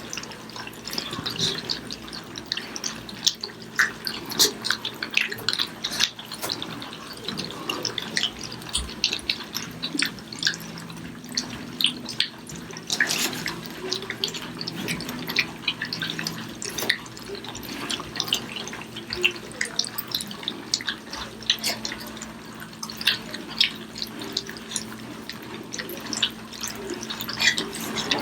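Several German Shepherd puppies eating softened puppy food: quick, irregular wet lapping and chewing clicks, many mouths at once.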